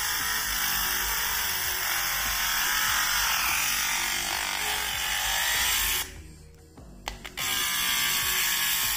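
Small motor of a handheld electric OCA glue remover tool running at speed, its spinning cutting bit grinding through the edge of a cracked phone screen: a steady high buzzing grind. About six seconds in the sound drops away for a moment with a couple of clicks, then runs again.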